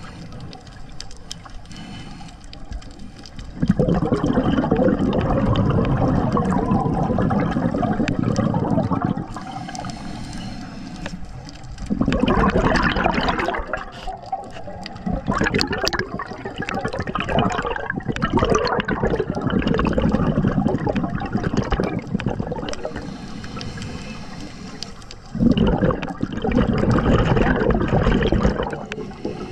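Scuba diver's exhaled bubbles rushing and gurgling from the regulator, heard underwater in long bursts several seconds apart, with quieter stretches between breaths.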